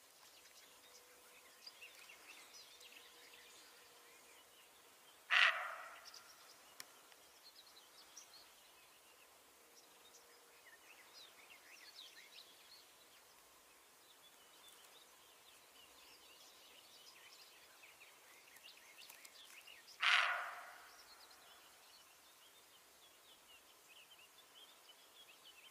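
Roe deer barking: two single short barks about fifteen seconds apart, each fading quickly, with faint birdsong throughout.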